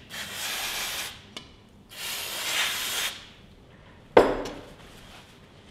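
An aerosol can of brake and clutch cleaner sprayed in two bursts of about a second each, cleaning the rope-seal grooves of the aluminium seal housings, then a single sharp knock as a part or the can is set down on the bench.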